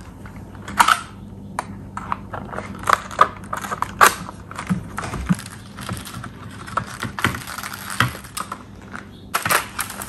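Plastic clips of a Samsung refrigerator French door mullion clicking and snapping as the plastic housing is pried open by hand, an irregular run of sharp clicks and knocks.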